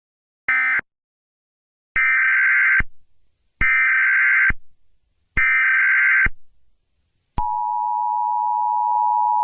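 Emergency Alert System signalling: a short digital data burst closing the previous message about half a second in, then three longer buzzy SAME header data bursts, each just under a second long and spaced about a second and a half apart. About 7 seconds in, the steady two-tone EAS attention signal starts and holds.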